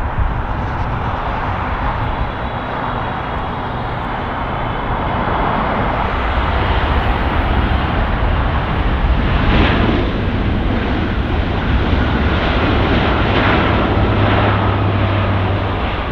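Jet airliner engines running, a steady loud rumble and roar that grows a little louder partway through.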